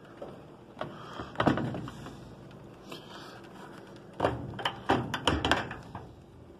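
Scattered clicks and knocks of hard plastic being handled: the GE washer's control console and load-size control being worked at. A quick run of clicks comes about four to five and a half seconds in.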